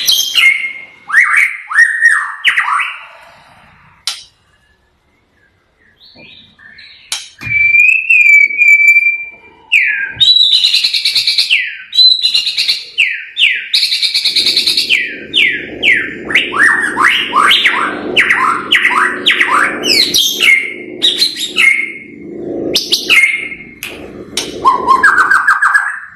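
A bird singing loudly in varied phrases: short whistles, a held whistle, and fast runs of falling notes, with a pause of a couple of seconds early on. A low steady hum sits under the song through the second half.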